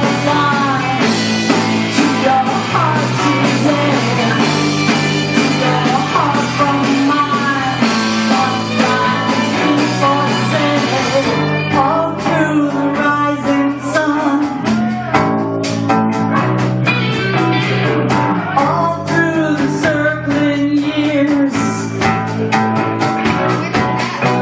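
Live rock band playing: a woman singing over electric guitars and a drum kit.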